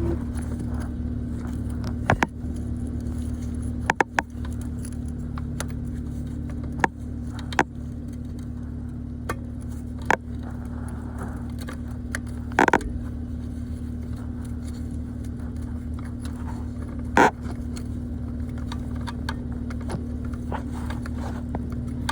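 Scattered metallic clicks, clinks and scrapes of a stubby wrench working the wire nut on a starter solenoid in a cramped engine bay, over a steady low hum. The loudest knocks come about halfway through and again a few seconds later.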